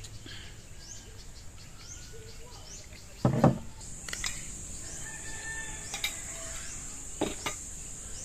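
Rural outdoor ambience: small birds chirping with repeated quick rising calls, and a steady high insect buzz that sets in about four seconds in. A single brief knock about three seconds in, and two lighter clicks near the end.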